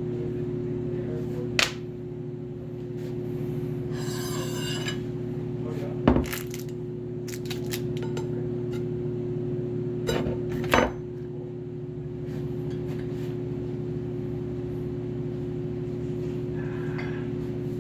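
Metal tools knocking and clinking on a treadmill roller's bearing and shaft: a few sharp knocks and one longer ringing clink, over a steady low hum.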